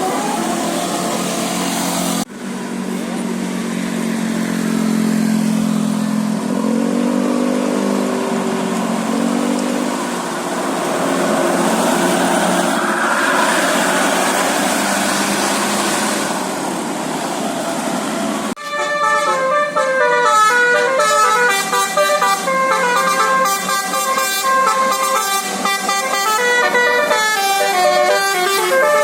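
Bus 'telolet basuri' musical horn playing quick melodies of rapidly changing notes, loudest and busiest in the last third. The middle stretch is mostly street noise, with lower horn tones sliding in pitch.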